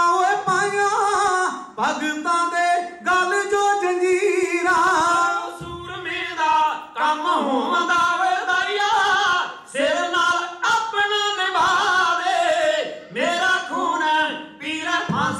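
Men singing a Punjabi kavishri, a ballad sung without instruments, into microphones. The lines are long, drawn-out and wavering, with short breaths between phrases.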